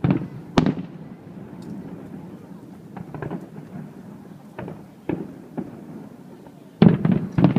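Fireworks exploding with a continuous rumble from the bursts echoing. One loud bang comes about half a second in, lighter scattered bangs and crackles follow through the middle, and a quick cluster of loud bangs comes near the end.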